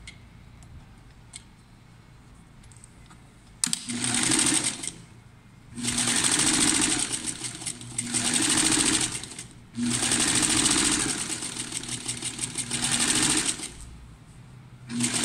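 Sewing machine stitching a seam in stop-start runs: after a few quiet seconds it starts about four seconds in for a short burst, then runs twice for several seconds each, easing its speed within the runs, and starts again at the very end.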